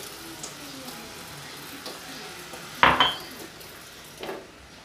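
Shredded chicken sizzling in a pan after a little water has been poured in, a steady hiss. A loud metal clank of the pan about three seconds in, and a lighter knock just after four seconds.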